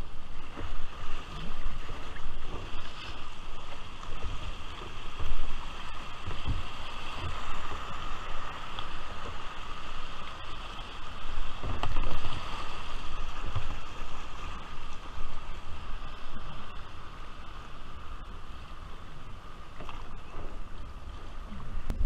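Shallow river water rushing over stones and splashing around a kayak being paddled down a riffle, with irregular low thumps throughout.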